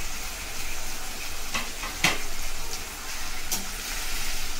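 Chopped onion, tomato, capsicum and herbs sizzling in hot oil in a kadhai as they are stirred with a slotted spoon. The spoon knocks and scrapes against the pan a few times, most sharply about two seconds in.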